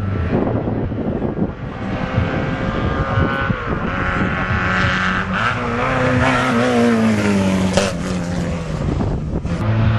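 Racing car engines revving hard on a hillclimb, the note rising and falling with the throttle and gear changes, one engine sweeping up and back down in pitch in the second half as a car goes by.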